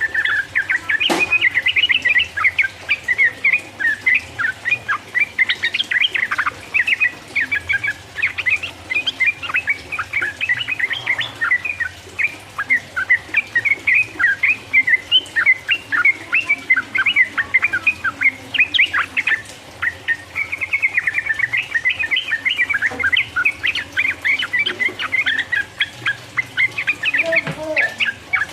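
Yellow-vented bulbul (trucukan) singing a long, rapid chattering song ("ropel"), a dense run of quick bubbly notes with hardly a break. A sharp click sounds about a second in.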